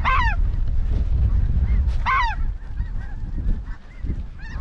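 Two loud, close goose honks, each falling in pitch, about two seconds apart, over the faint constant calling of a goose flock overhead. Heavy wind rumbles on the microphone throughout.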